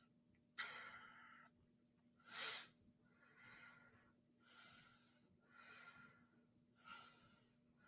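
Faint breathing close to the microphone, a soft breath about once a second, with one louder, sharper breath about two and a half seconds in.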